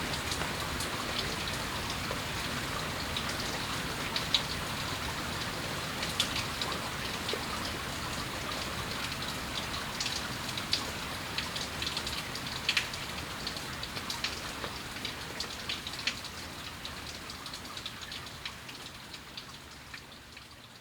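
Steady moderate rain falling, with many individual drops ticking sharply over the steady patter; the sound fades out gradually over the last few seconds.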